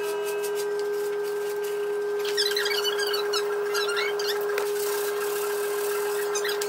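Sped-up workshop audio from a timelapse: a steady high-pitched hum, with rapid squeaky, chipmunk-like chatter coming in about two seconds in.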